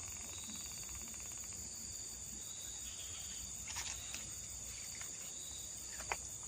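Insects chirring in a steady, high-pitched outdoor chorus, with two faint short clicks or rustles, one a bit past halfway and one near the end.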